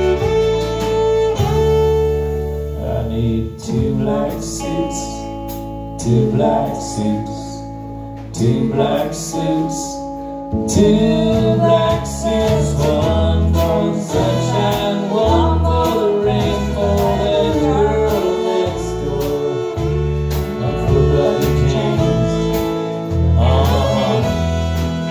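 Live country band playing: a woman singing over electric guitar, electric bass, fiddle and drums. The band thins out for a few seconds in the first half, then comes back in fuller.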